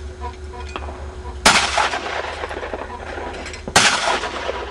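Two shotgun shots fired at clay targets, about two seconds apart, each a sharp report trailing off in a short echo.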